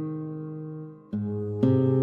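Instrumental background music: sustained notes fade out, there is a brief dip about a second in, then new notes come in.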